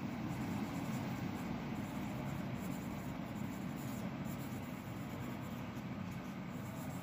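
Pencil scratching on notebook paper while words are written by hand, over a faint steady room hiss and hum.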